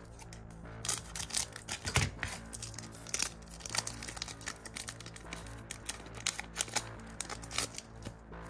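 A trading-card pack crinkling as it is torn open, then the cards inside handled and flipped through: a run of sharp crinkles and clicks over quiet background music.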